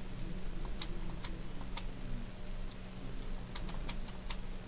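Sharp clicks of a computer mouse and keyboard while modelling software is worked: a few single clicks spaced out, then a quick cluster of several near the end, over a steady low electrical hum.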